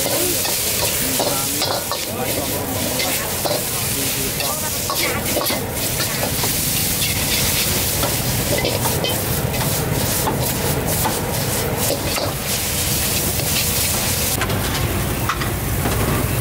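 Stir-fried noodles with shrimp sizzling in a hot steel wok, with the metal ladle scraping and clicking against the pan again and again as they are tossed, over a steady low rumble.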